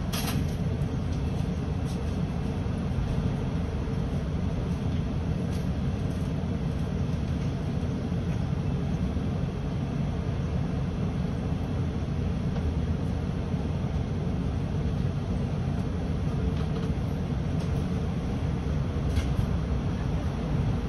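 Volvo 7900 Hybrid city bus on the move: a steady rumble of road and drivetrain noise, with a few short clicks or rattles, one at the start and one near the end.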